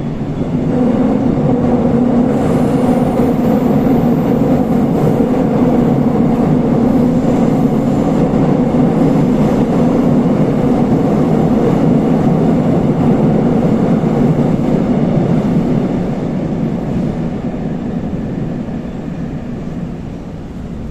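Seoul Line 4 4000-series Daewoo–Alstom GTO VVVF electric train running between stations, heard from inside the carriage: a loud, steady rumble of wheels on rail and running gear that eases off after about sixteen seconds.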